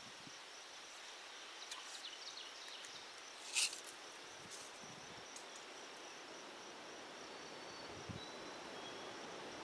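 Quiet rural outdoor ambience with a steady high insect hum. A single sharp click comes about three and a half seconds in, with a few fainter clicks before it.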